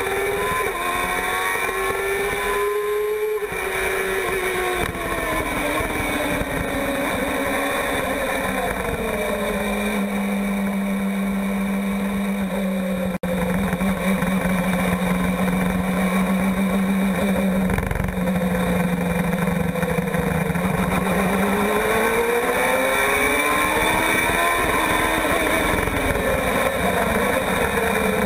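Formula 1000 race car's 1000cc motorcycle engine heard onboard. It revs high under acceleration, with a quick upshift break about three seconds in, then falls in pitch as the car slows. It holds a steady lower drone for several seconds and rises again in pitch on acceleration out of a corner near the end.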